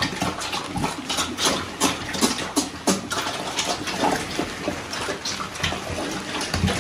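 Adult pigs eating wet slop of bread and food scraps from a trough: a dense, irregular run of wet smacking and slurping.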